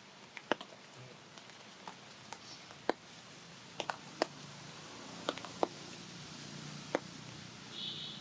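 Faint outdoor background with scattered sharp ticks and taps, a dozen or so at irregular intervals, and a brief high chirp near the end.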